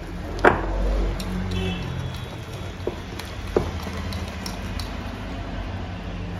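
Wire whisk beating thick cake batter in a glass bowl, knocking sharply against the glass three times: once hard about half a second in, then twice more lightly around three seconds in. A steady low hum runs underneath.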